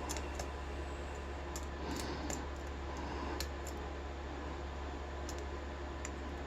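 Faint, irregular small clicks of a reach pick working the six pin stacks of a Maxus pin-tumbler rim cylinder under light tension, over a steady low hum.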